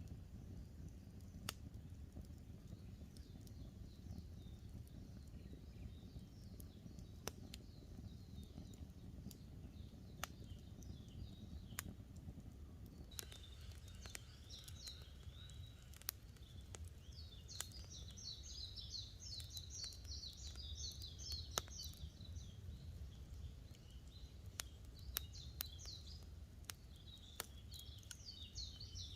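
Campfire crackling with scattered sharp pops over a low steady rumble, while small songbirds chirp and twitter. The birds sing in quick runs that grow busier from about halfway on.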